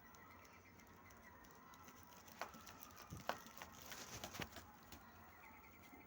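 Quiet eating sounds: a handful of soft clicks and smacks from mouth and utensils while eating noodles, bunched in the middle of the stretch, over faint background.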